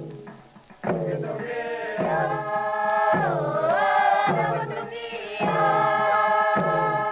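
A group of Papua New Guinea villagers singing a chant together: held sung phrases, each sliding down in pitch as it starts, with short breaks between them.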